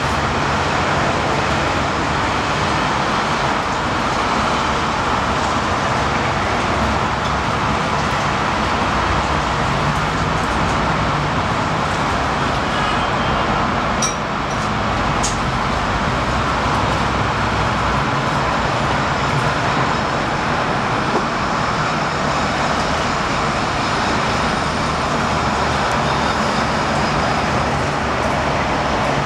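Steady background roar of road traffic, even and unbroken, with two short sharp clicks about halfway through.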